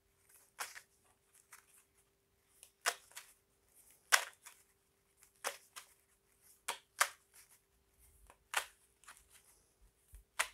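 A deck of tarot cards being handled, with irregular crisp card snaps and flicks roughly once a second. A faint steady hum sits underneath.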